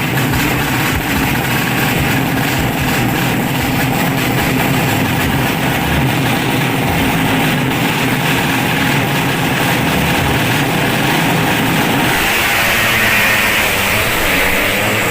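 Drag-racing motorcycle engines running steadily at idle, with no sharp revs, and a hiss that grows louder near the end.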